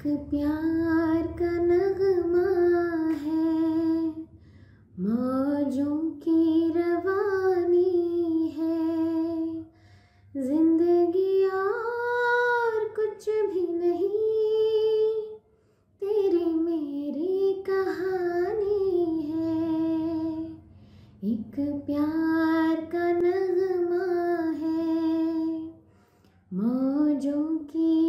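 A woman singing a song solo, without accompaniment, in long phrases of about five seconds with short breaths between them.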